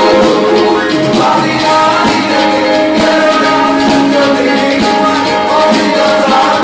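Live band playing a song, with keyboard, percussion and voices singing over it.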